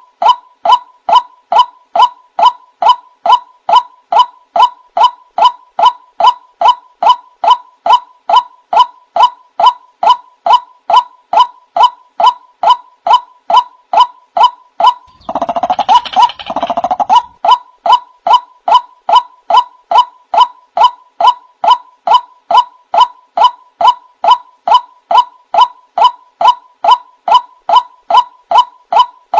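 Male white-breasted waterhen ("wak wak" bird) calling: a steady, unbroken run of short, clipped "wak" notes, about two a second. A harsher, noisier call overlaps it for a couple of seconds about halfway through.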